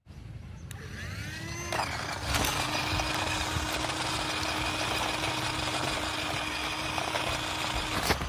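A small electric motor in a homemade toy car whirs, rising in pitch about a second in and then running steadily. Its can-bottom wheels hiss over rough concrete, and there is a sharp knock near the end.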